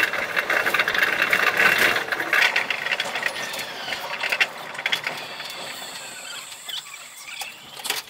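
Running noise of a Chiba Urban Monorail 0 Series suspended train, sped up fivefold into a high-pitched hiss and squeal. It fades steadily, with a falling whine in the second half, as the train slows to a stop at a station.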